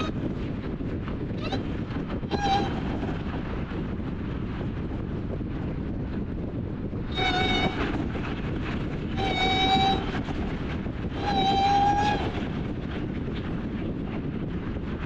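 Wind rushing over a hood-mounted microphone with road noise from a car cruising on a highway. Over it a high-pitched horn sounds four times: a short blast about two seconds in, then three longer, louder blasts near the middle.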